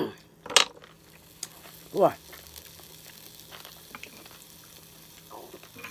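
Wet mouth and sauce sounds of someone eating green-lipped mussels in a spicy sauce, with chewing and slurping. A sharp shell click comes about half a second in, and a short hum falling in pitch comes about two seconds in.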